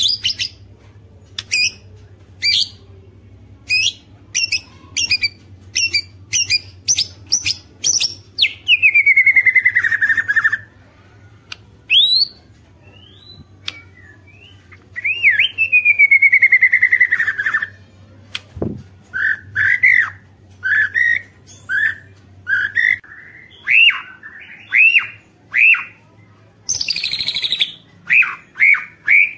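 White-rumped shama (murai batu) singing a varied song: a run of sharp short ticking notes, then long falling whistles, then quick repeated whistled phrases. A faint low hum sits underneath for most of the time.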